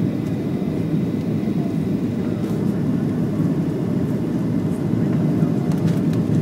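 Steady low cabin noise inside a Boeing 737-700 on approach with its flaps extended: the airflow and the CFM56 turbofans blend into an even rumble, heard from a window seat by the wing.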